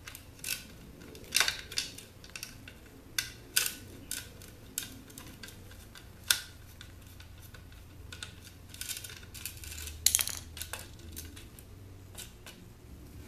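Screwdriver clicking and scraping as the screws holding the power cord in an electric hot water pot's base are backed out, with small parts handled in short, irregular clicks; the loudest clatter comes about ten seconds in.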